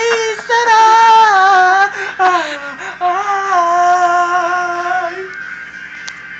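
A man singing long held notes that waver and slide slowly down in pitch, a few drawn-out phrases, breaking off about five seconds in.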